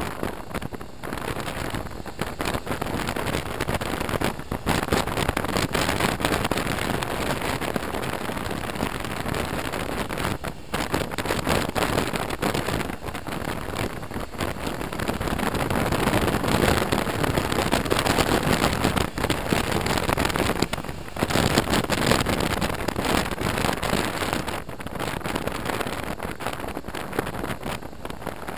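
Wind rushing over a helmet-mounted camera's microphone on a motorcycle at road speed, a loud noisy rush that swells and eases, with a few brief sudden drops.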